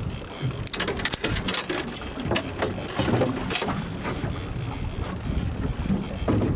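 Fishing reel clicking and ratcheting in irregular runs as a hooked fish pulls line from it, over a steady rushing noise.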